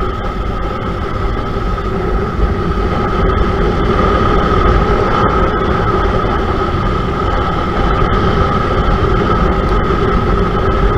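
KTM RC 200's single-cylinder engine running steadily as the bike rides along at speed, under a heavy rush of wind noise. It gets slightly louder as the bike speeds up from about 46 to 59 km/h.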